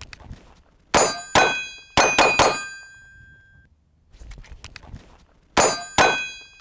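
Pistol shots on steel plate targets, each hit ringing out with clear sustained tones. The first string is five quick shots in about a second and a half. After a pause of about three seconds a second string begins near the end.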